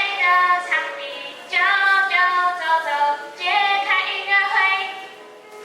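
A high voice singing a melody in short phrases, with little or no instrumental backing.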